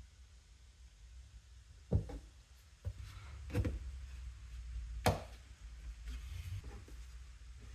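A few scattered knocks and taps of a woodworker handling pieces and tools, the loudest about five seconds in, over a low steady hum.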